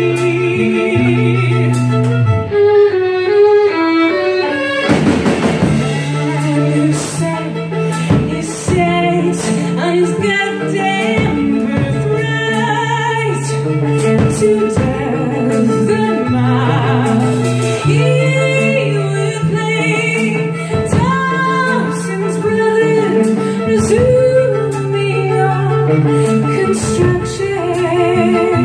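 A live band playing: a woman singing lead over bowed violins, electric bass guitar and drums. The bass holds steady low notes under the voice, and the drum hits keep a regular beat.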